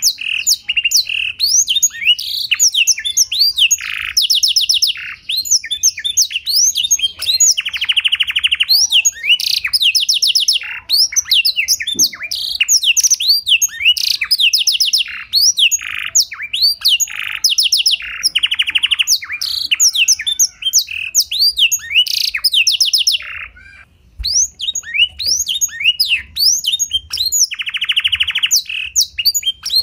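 Domestic canary singing a long, continuous song of quick chirps, whistles and rapid trills, with buzzy rolls recurring every several seconds; its song is filled with phrases learned from the blackthroat (black-throated canary). The song breaks off briefly near the end.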